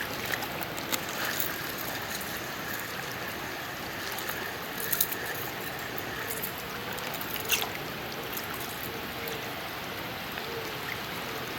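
River water running steadily, with a few brief clicks about five and seven and a half seconds in.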